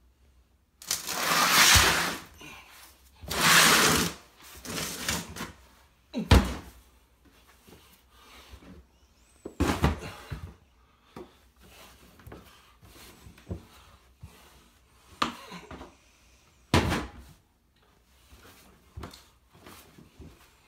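A plastic laundry basket is shoved step by step up bare wooden stairs, with hands and knees landing on the treads. It makes irregular knocks and thumps, several of them sharp and loud, and there are two longer scraping, rustling sounds in the first few seconds.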